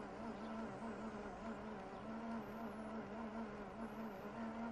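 The motor-driven toothed-belt drive of a mechanical trick suitcase, running as two belts work as caterpillar tracks to walk it along. It gives a steady buzzing hum that wavers slightly.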